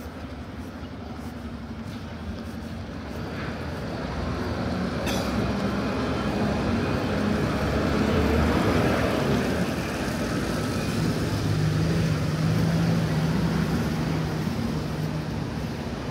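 Box lorry's diesel engine running as it drives slowly past on wet paving, with tyre hiss. The sound swells to its loudest about eight seconds in, then eases off a little.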